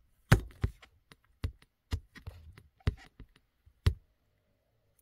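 Dwarf hamster crunching a piece of dried banana held in its paws: about a dozen sharp, irregular crunches, the loudest about a third of a second in and another near the end.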